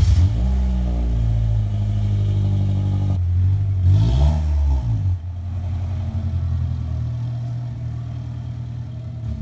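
Car engine with a loud aftermarket "fart cannon" exhaust catching and running with a deep drone, revved once about four seconds in, then settling and slowly fading as the car moves off.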